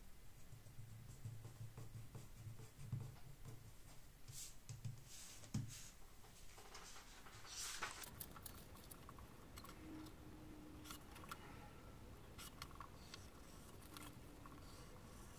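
Faint handling of printed paper pattern sheets on a cutting mat: soft taps and rustles, with a louder rustle as a sheet is lifted about eight seconds in. A faint low hum runs under the first few seconds.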